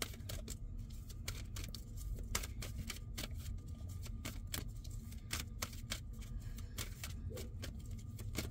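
A deck of oracle cards being shuffled overhand in the hands: a quick, irregular run of light card clicks and flicks, over a low steady hum.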